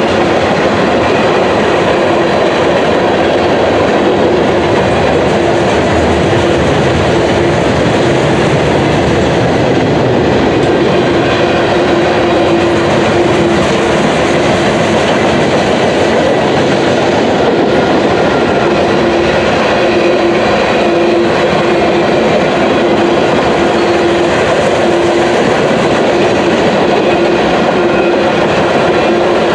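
Freight train cars rolling past close by: a loud, steady rumble of steel wheels on rail, with a low hum that comes and goes.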